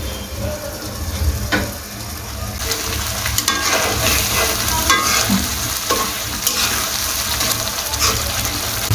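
Thick shrimp curry sauce sizzling in a metal karahi while a spatula stirs and scrapes against the pan, with irregular sharp scrapes. The sizzling grows louder a few seconds in as the sauce reduces over medium heat.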